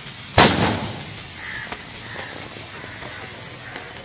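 A large lump of sodium metal reacting with puddle water goes off in one sharp bang about half a second in, followed by a fading hiss and scattered small crackles as the burning pieces react.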